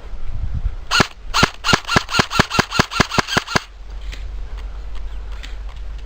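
Airsoft gun firing a rapid string of about a dozen sharp shots, starting about a second in and stopping after roughly two and a half seconds, at about four to five shots a second.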